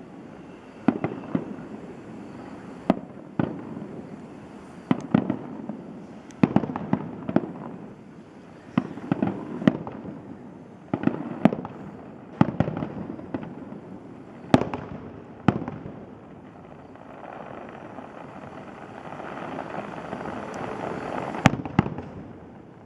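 Aerial fireworks going off in a long series of sharp bangs, one or two a second, each trailing off in a rumbling echo. Near the end a rushing noise swells up, ending in two last bangs.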